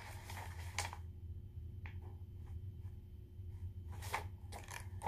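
Quiet room tone: a steady low hum with a few faint, soft taps and rustles scattered through it.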